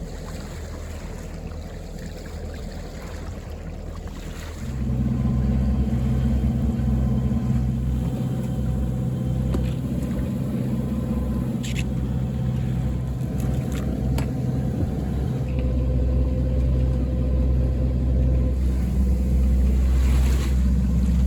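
A sailing yacht's inboard engine running steadily under way, a low drone that gets noticeably louder about five seconds in.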